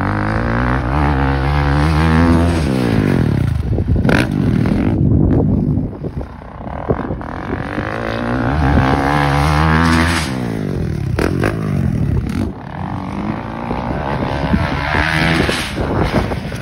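Honda CRF450RX dirt bike's single-cylinder four-stroke engine, revving up in long pulls and dropping off again several times as the bike accelerates along the trail.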